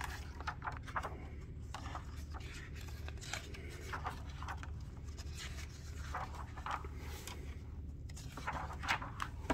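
Pages of a hardcover picture book being turned and pressed flat by hand: a string of short paper rustles and brushes, over a steady low hum.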